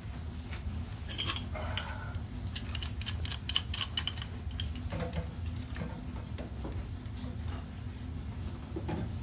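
Metal hand tools clinking and tapping on steam boiler pipe fittings while the pressuretrol pigtail is being worked loose, with a quick run of clicks about three seconds in, over a steady low hum.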